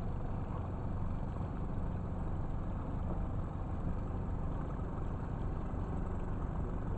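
A boat engine idling steadily with an even low hum.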